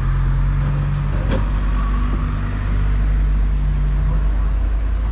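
Motor vehicle engine running steadily, a low continuous hum, with a single sharp click a little over a second in.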